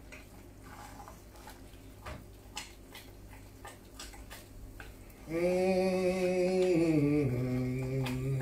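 Wooden spoon stirring thick pasta and potatoes in a copper pot, with faint soft knocks. About five seconds in, a man hums a long note, then drops to a lower note near the end.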